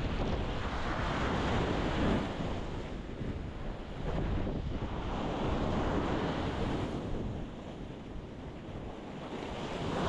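Ocean waves breaking and washing on a rocky beach, swelling and falling every few seconds, with a steady low rumble that sounds like wind on the microphone.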